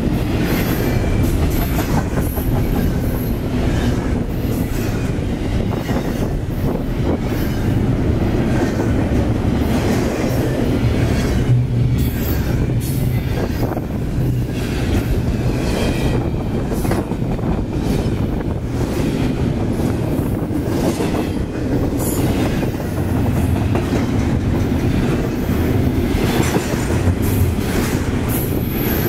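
CSX double-stack intermodal freight train rolling past at close range over a steel girder bridge: a steady, loud rumble of the well cars with the wheels clattering over the rail joints.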